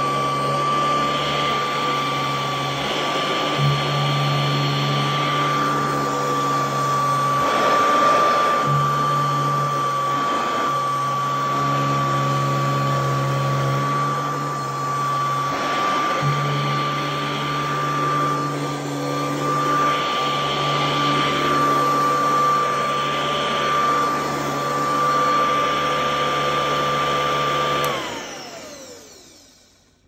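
1986 Electro Hygiene (Royal 903) upright vacuum cleaner running with a steady high-pitched motor whine. Near the end the motor winds down, its whine sliding down in pitch as the sound fades away.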